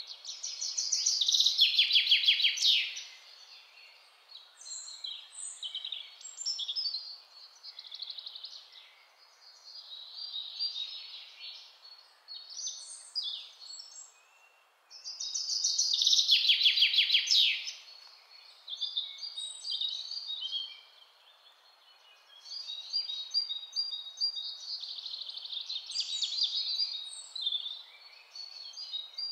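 Birdsong ambience: several birds chirping and trilling over a faint steady outdoor hiss, with a loud rapid trill near the start and again about halfway through.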